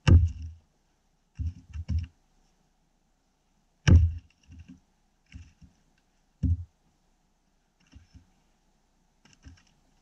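Fire axe striking and splitting frozen spruce rounds: sharp, heavy thunks, the loudest right at the start, about four seconds in and about six and a half seconds in, with lighter knocks of wood between and near the end.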